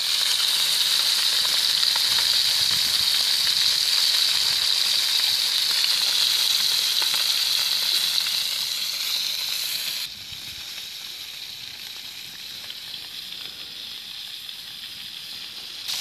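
Crucian carp frying in a large pan, a steady sizzle. About ten seconds in it drops abruptly to a quieter sizzle.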